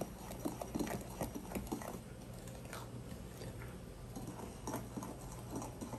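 Quiet, irregular clicks and soft taps of a wooden spoon stirring thick egg-yolk and coconut batter in a glass bowl.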